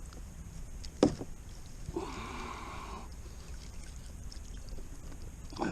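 Handling noises in a small fishing boat: one sharp knock about a second in, then a rasping sound lasting about a second, over a steady low rumble.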